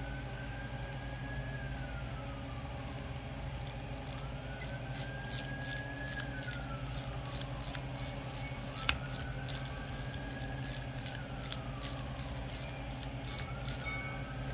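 Small hand ratchet clicking steadily, a few clicks a second, as it turns a brass main jet back into a motorcycle carburetor. Behind it a faint whine rises and falls three times over a low steady hum.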